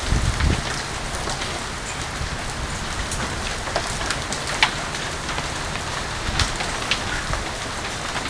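Hailstorm: a steady hiss of falling hail and rain, with scattered sharp clicks of individual hailstones striking hard surfaces.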